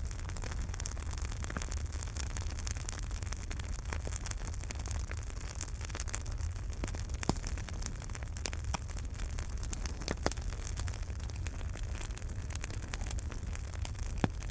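Wood fire burning in a fireplace: a steady low rumble and hiss with frequent small crackles and a few louder pops.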